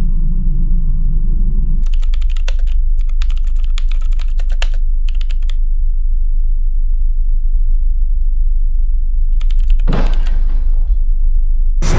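Computer keyboard typed rapidly in a couple of quick runs of key clicks, over a steady low hum. A low rumble fades out before the typing starts, and a loud burst of noise comes near the end.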